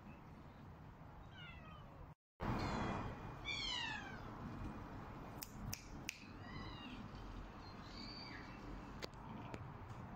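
Domestic cats meowing repeatedly, several separate meows that fall or arch in pitch. The loudest come just after a short break about two seconds in. A few sharp clicks fall between the later meows.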